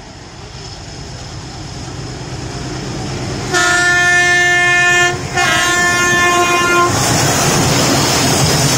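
An Indian Railways diesel locomotive hauling a goods train approaches, its rumble growing steadily louder. Its multi-tone air horn then sounds two long blasts with a short break between them. After that the locomotive passes close by with loud engine and wheel noise.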